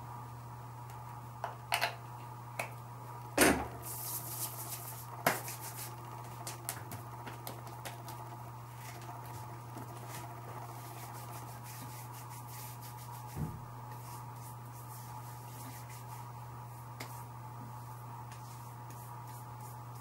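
Small handling sounds from a cosmetics tube being handled: a few sharp clicks, the loudest about three and a half seconds in, then a few seconds of light crackling rustle. A dull knock comes about thirteen seconds in, over a steady low hum.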